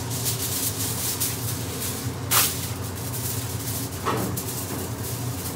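Aluminium kitchen foil being pulled from its box and crinkled over a pot, with one sharp crackle about two and a half seconds in, over a steady low hum.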